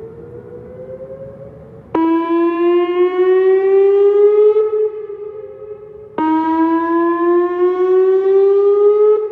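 Whelen WPS-2909 electronic outdoor warning siren sounding its test: a steady siren tone rising slowly in pitch. It swells suddenly loud and bright twice, about four seconds apart, as the rotating speaker head turns toward the listener, and falls back fainter in between.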